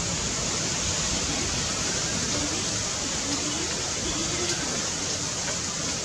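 A steady, even rushing hiss of outdoor background noise, with no bird call standing out.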